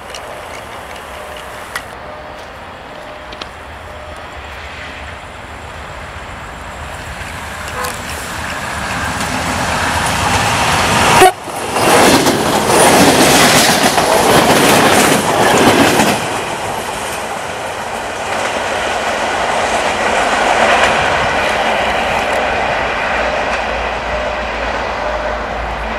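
Diesel multiple unit passing close at speed: the rumble builds, is loudest for about four seconds near the middle, then settles to a steady run.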